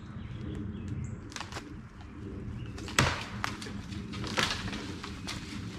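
Sharp cracks and snaps of dry wood while a rope is pulled hard on a tree, the loudest crack about three seconds in.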